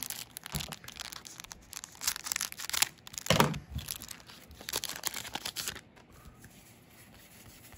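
Weiss Schwarz trading-card booster pack wrappers being torn open and crinkled, in irregular rustling bursts that die down near the end.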